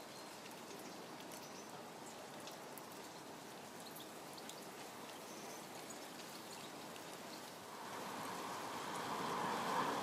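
Steady rain falling, an even hiss with faint short high ticks scattered through it; a louder rushing noise swells in near the end.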